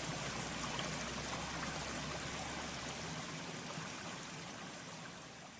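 Recorded mountain stream: a steady rush of flowing water that slowly fades out toward the end.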